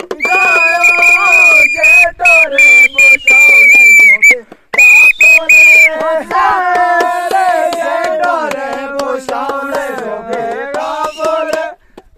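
Hand-held whistles blown in a long, loud, steady blast for about four seconds, then three short blasts, over a group of voices chanting. After that the chanting goes on without whistles.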